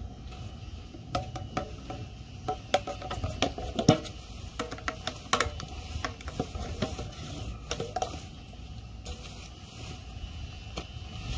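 A gallon metal can of liquid masking being handled: a run of irregular metallic clicks, taps and clanks from its lid and wire bail handle, busiest in the first two-thirds, then tapering off.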